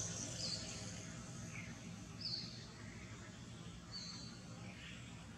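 Bird chirping in the background: a few short, high chirps a second or two apart over faint outdoor ambient noise.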